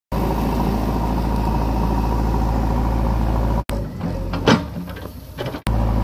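Diesel engine of a JCB 3DX backhoe loader running steadily. The engine sound cuts off abruptly a little past halfway and returns shortly before the end. In the quieter stretch between, there is one loud, sharp knock, the loudest moment.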